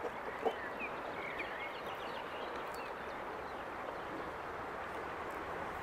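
Woodland outdoor ambience: a steady, even background hiss with a few faint, short bird chirps about a second in, and a couple of light taps near the start.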